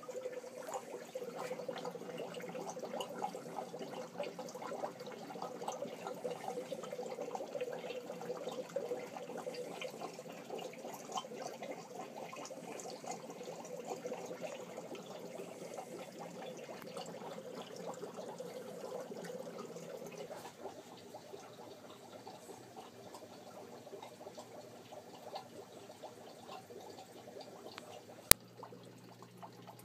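Aquarium water bubbling and trickling from air-driven sponge filters in the newt tanks, a steady splashy sound that grows fainter about two-thirds of the way in. One sharp click near the end.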